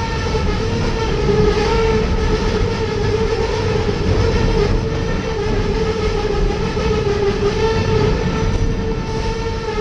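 Excursion train rolling on the rails with a steady, slightly wavering squeal from its brakes held on a long downhill grade, over a low rumble of the wheels on the track.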